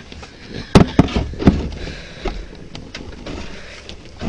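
Three sharp knocks close together about a second in, then a few lighter clicks and handling noise.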